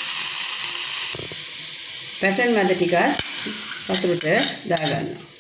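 Hot aluminium saucepan hissing and sizzling, loudest for about the first second. Passion fruit pulp is then tipped into the pan from a bowl, with a sharp knock or two.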